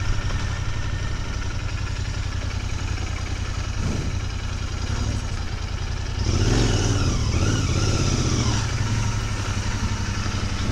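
Royal Enfield Continental GT 650's parallel-twin engine running at low speed, a steady low throb as the bike rolls slowly along. About six seconds in, a louder stretch of mixed noise lies over it for a few seconds.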